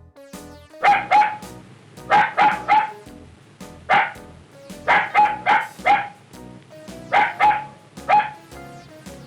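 A dog barking in quick runs of two or three barks, about a dozen barks in all, over background music.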